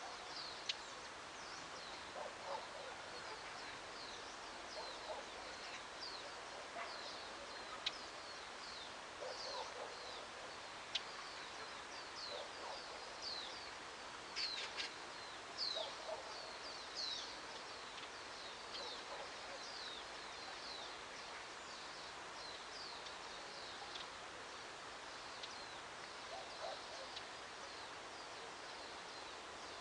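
Small birds chirping: a steady run of short, high, downward-sliding calls, with some lower notes and a few sharp clicks, over a soft, even background hiss of outdoor ambience.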